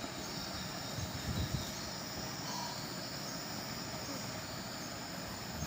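Steady background hiss, with a couple of dull low bumps about a second in.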